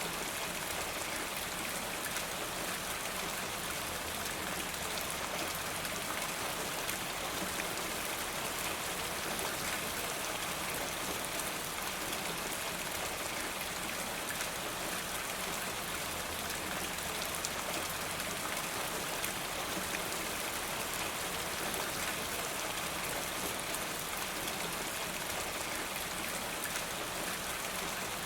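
Steady rain falling, with many fine drops tapping on a surface and water running from a rain gutter.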